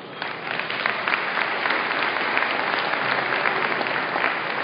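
Audience applauding, many people clapping at once; the clapping starts just after the beginning.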